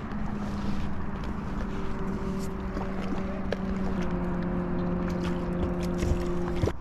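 Steady engine drone over wind on the microphone; its pitch steps down slightly twice, about two and four seconds in, and it cuts off sharply near the end.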